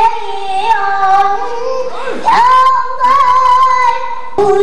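A young girl singing pansori in long, held notes, her voice dipping and sliding back up in pitch about halfway through.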